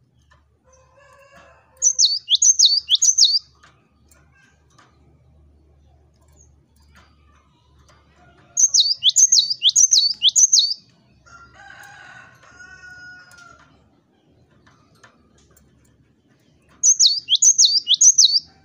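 Cinereous tit singing: three loud bursts of song, each a quick run of four or five whistled notes that slide sharply down in pitch, with gaps of several seconds between them.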